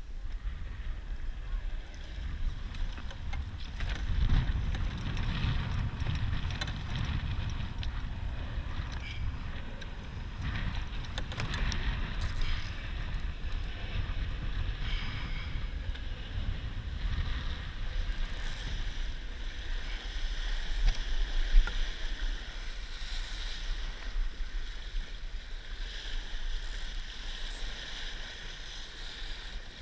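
Wind buffeting the camera microphone and water rushing and splashing along the hull of a Laser dinghy sailing in a 15–20 knot wind, heard as a steady rumbling hiss. It swells briefly about two-thirds of the way in.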